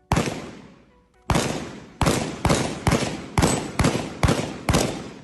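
A series of nine sharp bangs, each ringing out as it fades. After two spaced-out bangs, the last seven come evenly about half a second apart.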